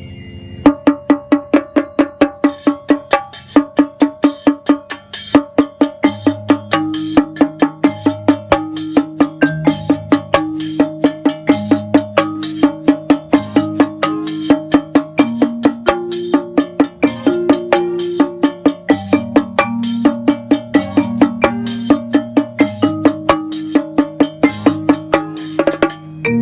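Music with a quick, steady percussive beat of about four sharp hits a second, over a repeating pitched melody and a bass line.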